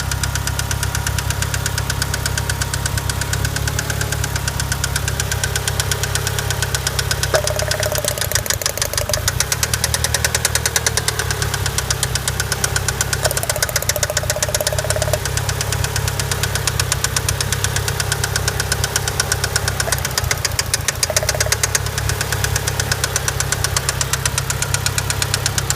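Mitsubishi Eclipse GST's turbocharged 4G63T inline-four running with a steady, rhythmic knock from the bottom end: rod knock, a failed connecting-rod bearing.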